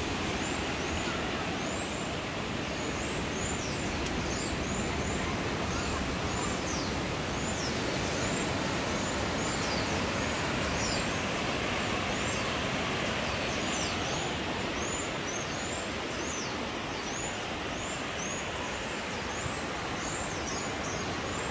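Birds giving short, high chirps over and over, about one or two a second, over a steady rushing noise.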